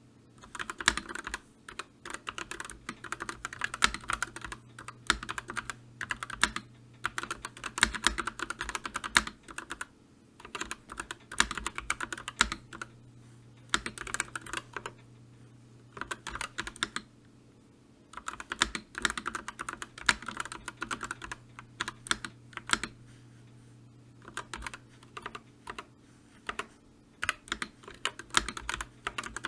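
Typing on a computer keyboard: runs of rapid key clicks in bursts of a few seconds, broken now and then by brief pauses.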